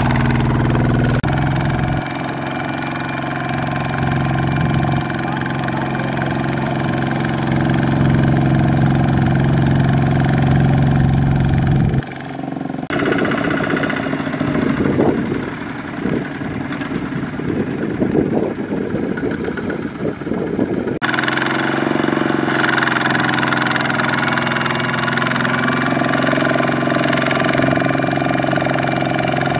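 Two-wheel walk-behind tractor's single-cylinder diesel engine running steadily under load as it pulls a trailer of rice sacks through mud. The sound changes abruptly twice, about twelve and twenty-one seconds in, with a rougher, more uneven stretch between.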